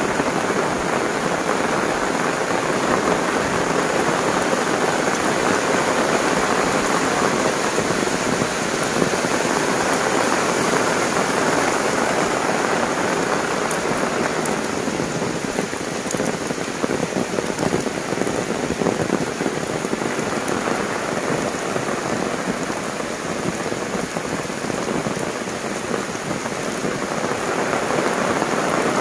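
Heavy rain pouring steadily onto a concrete path and leafy plants, a dense, even hiss. It eases a little in the middle and picks up again near the end.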